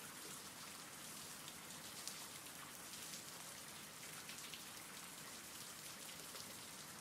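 Faint, steady rain falling: an even hiss with scattered soft drop ticks.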